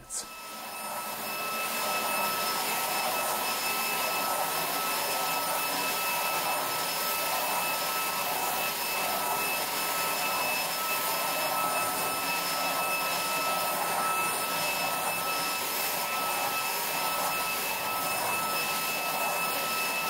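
Roidmi F8 cordless stick vacuum running as its motorised roller head is pushed over a shag rug: a steady rush of suction with a high whine over it, building up over the first two seconds and then holding steady.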